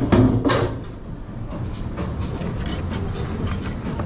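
A loud clatter of dishes in the first half-second, then scattered small clinks, over a steady low rumble of commercial kitchen machinery.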